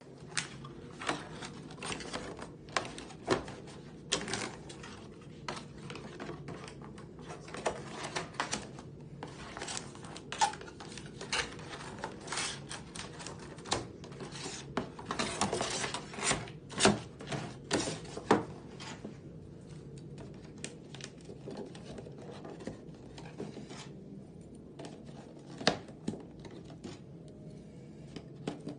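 Corrugated cardboard being folded, creased and tucked together into a display box: irregular taps, knocks and scrapes of cardboard against a tabletop, busiest around the middle and sparser toward the end, over a low steady hum. Near the end plastic peg hooks are fitted into the box's back panel with a few sharper clicks.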